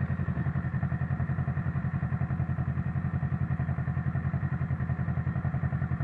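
Motorcycle engines idling at a standstill: a Kawasaki Ninja 650 sport bike and a Victory Jackpot V-twin cruiser side by side, a steady, evenly pulsing low idle.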